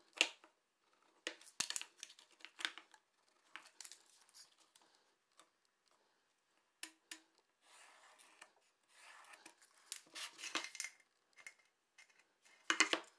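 Tape measure handled on a plywood board: a run of sharp metal clicks and taps from the blade and end hook, with stretches of scratching from a pencil marking the wood. The loudest clicks come at the very start and again near the end.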